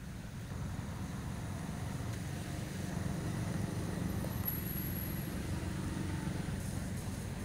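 Steady low rumble of distant road traffic, growing a little louder about three seconds in.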